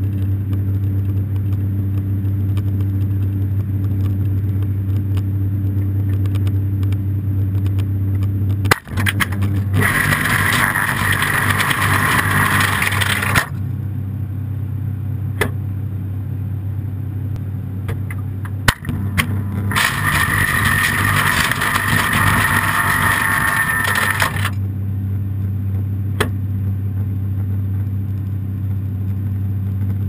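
Refrigerator's freezer compartment running with a steady low hum. Twice, about 10 and 20 seconds in, a hissing noise switches on sharply for about four seconds and then cuts off, with a few sharp clicks around it.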